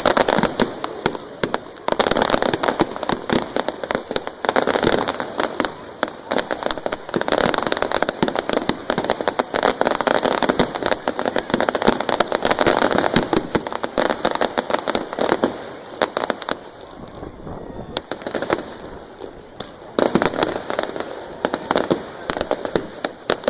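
Fireworks display: a rapid, continuous barrage of bangs and crackling, easing off for a few seconds about two-thirds of the way through before building up again.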